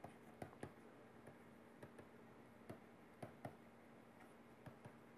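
Near silence with faint, irregular ticks from a stylus tapping and stroking across a tablet screen during handwriting, over a faint steady hum.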